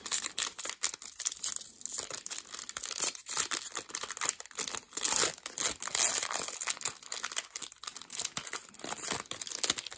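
Foil wrapper of a 2021 Panini Contenders football card pack being torn open and pulled apart by hand, crinkling and crackling densely throughout.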